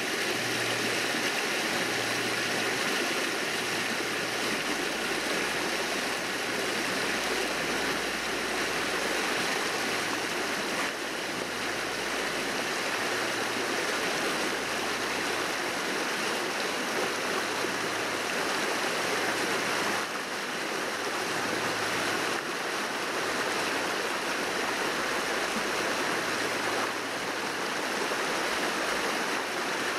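Shallow, rocky forest stream rushing through rapids, a steady, unbroken rush of water.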